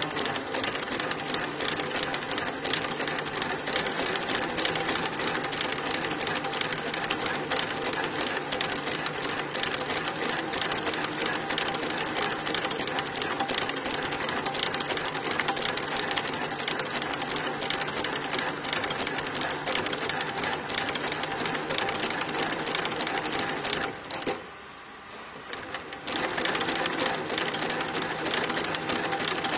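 Industrial shoe side-seam sole stitching machine running, a rapid, steady clatter of stitching as it sews around the edge of a sole. It stops for about two seconds near the end, then starts stitching again.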